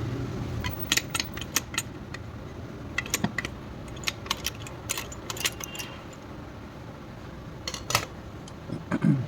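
Small metal engine parts and tools clinking and tapping against each other as they are handled and fitted during motorcycle engine assembly: scattered light metallic clicks, with a dull thump near the end.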